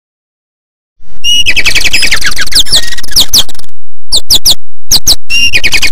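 Birds chirping as a cartoon sound effect: a dense run of quick, whistled chirps, many sliding down in pitch, starting after about a second of silence and broken twice by brief dead-silent gaps near the middle.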